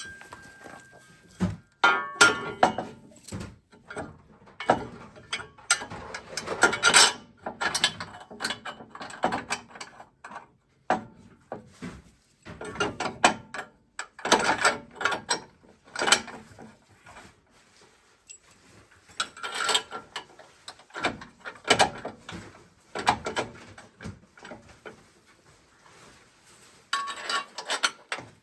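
Irregular runs of mechanical ratcheting clicks and clanks of hand tools working on metal, coming in short bursts with pauses between.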